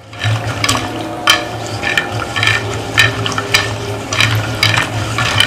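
Wet jackfruit seeds being rubbed by hand against the ridged inside of a clay batna grinding bowl: a rough, wet scraping with irregular clicks as the seeds skid and knock over the ridges, scrubbing off their skins. A low steady hum runs underneath.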